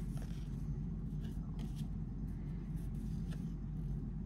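Faint rustles and light clicks of baseball trading cards being slid and flipped through by hand, a few short ones scattered through, over a steady low hum.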